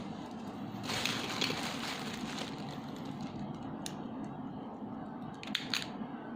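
Plastic DX Gaburevolver toy being handled: a soft rustling hiss, then two sharp plastic clicks close together about five and a half seconds in.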